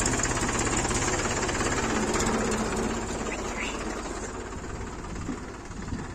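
Mahindra 275 DI TU XP Plus tractor's three-cylinder diesel engine running with a rapid clattering beat, growing quieter as the tractor pulls away.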